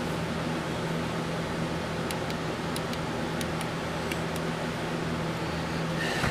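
Steady machine hum, with a few faint light ticks in the middle.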